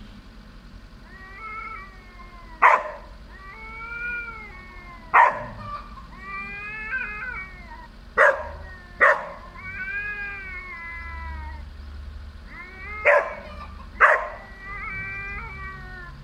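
Domestic cats in a fighting standoff, yowling at each other in long, wavering, rising-and-falling calls. The yowls are broken six times by short, loud spits, the loudest sounds here. Together they are an aggressive warning before a fight.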